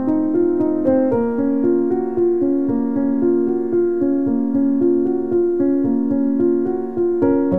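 Background piano music, a calm melody of notes struck in a gentle, even flow.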